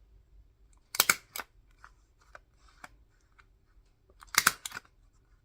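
A stapler driving staples into paper twice, each time a short cluster of sharp clicks, about a second in and again past four seconds, with light paper handling between.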